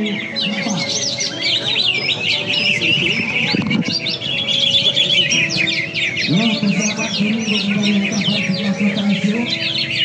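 A dense chorus of many caged songbirds singing at once, with rapid overlapping chirps and trills. A low steady tone runs beneath them, strongest from about six seconds in.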